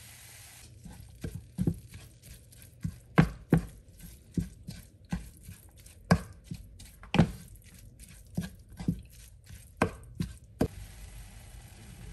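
Wooden spatula chopping at raw minced beef in a frying pan to break it up: irregular sharp knocks on the pan, roughly two a second, stopping near the end.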